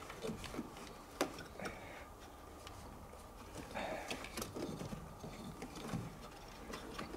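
Scattered small clicks, taps and scrapes of hands working a tight nut behind a classic Mini's dashboard, one sharper click about a second in.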